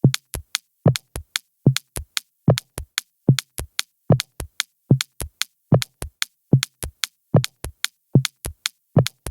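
Electronic music opening with a bare drum-machine beat: short, sharp clicky hits, with a heavier low kick about every 0.8 seconds and lighter ticks in between.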